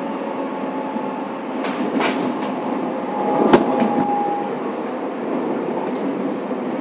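Running sound from inside a Fukuoka City Subway 2000 series electric train car: a steady rumble of wheels on rail. There is a click about two seconds in, and a sharp clank about three and a half seconds in, followed by a brief thin squeal.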